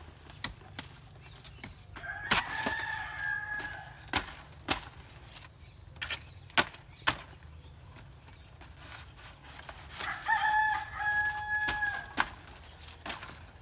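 A rooster crowing twice, each crow about two seconds long and held on one pitch, the first about two seconds in and the second about ten seconds in. Sharp knocks or taps come between them, some louder than the crows.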